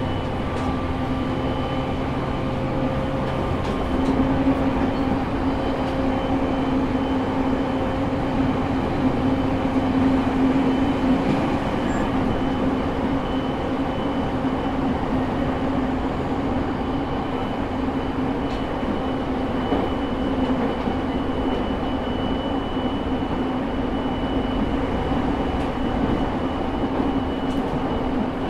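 JR East E217 series EMU motor car (Mitsubishi GTO-VVVF inverter, MT73 traction motors) running at a steady speed. A steady motor and gear whine holds one pitch over the rumble of wheels on rail, with a slight rise in loudness about four seconds in.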